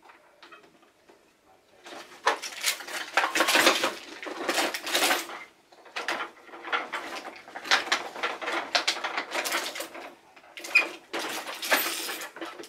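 Hard plastic toy fire truck being handled: irregular clattering, knocking and clicking of its plastic parts and ladder, starting about two seconds in.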